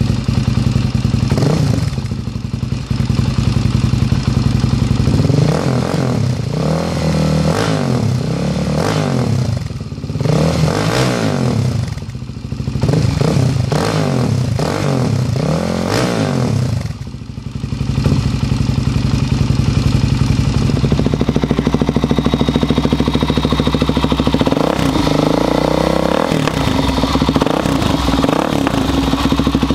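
Suzuki DR-Z400SM single-cylinder four-stroke engine running through an MRD aftermarket exhaust. It idles steadily, then from about five seconds in it is blipped repeatedly, each rev rising and falling back. After a dip near the middle it settles into a steady idle.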